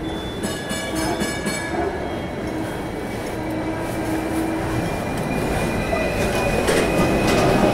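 Hong Kong double-decker electric tram running on its street tracks: a steady rumble with thin wheel-squeal tones and a few sharp clicks about a second in. The rumble grows louder near the end as another tram passes close alongside.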